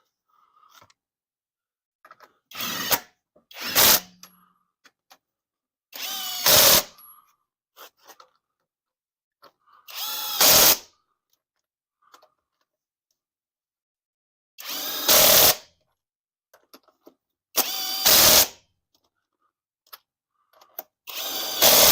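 Power drill with a socket attachment running lug nuts down onto a wheel in short bursts every few seconds. Each burst rises to a loud peak as the nut snugs down against the rim.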